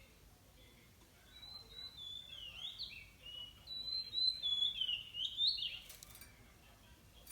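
Oriental magpie-robin singing a varied run of clear whistled notes that slide up and down, starting about a second in and stopping a little before the end, followed by a short click.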